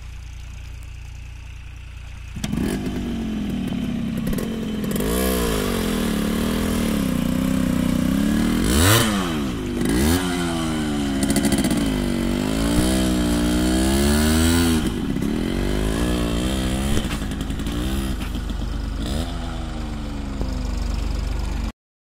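A Yamaha RX100's two-stroke single-cylinder engine running and being revved over and over, its pitch rising and falling. It gets much louder about two seconds in, sweeps up sharply twice around the middle, and cuts off abruptly near the end.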